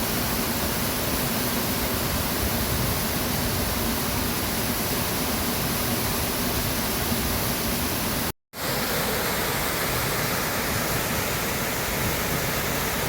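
Steady rushing of a waterfall. It cuts out for a moment about eight seconds in, then resumes with a slightly different tone.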